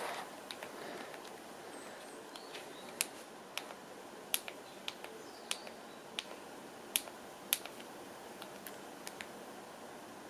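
Computer mouse clicking: single sharp clicks, irregularly spaced about every half second to a second, over faint room hiss. It is typical of someone clicking through options in software.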